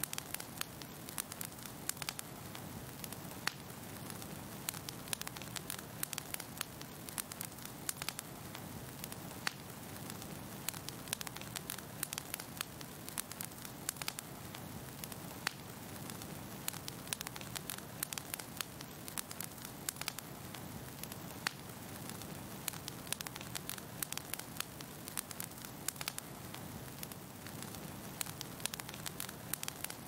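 Wood fire crackling in a fireplace: irregular sharp pops and snaps, several a second, over a steady low rumble of the flames.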